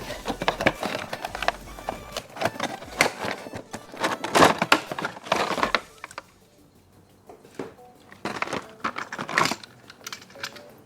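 Toy packaging being handled and opened: a dense run of plastic and cardboard crinkles and clicks, pausing about six seconds in, then a few scattered clicks.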